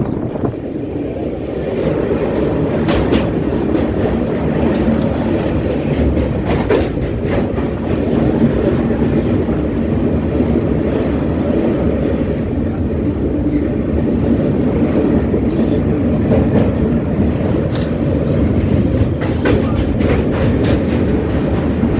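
Passenger train running at speed across a river bridge: the steady rumble of wheels on the rails, with occasional sharp clicks.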